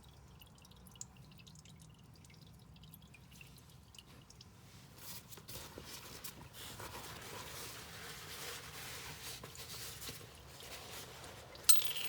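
Old engine oil dripping from a 2012 Honda Civic Si into an aluminium drain pan, faint scattered drips at first, with the sound growing denser and noisier from about five seconds in. A single sharp clink near the end.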